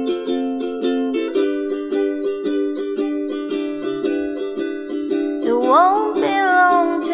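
Ukulele strummed in a steady down-up pattern, changing chord about a second in. A voice starts singing about five and a half seconds in.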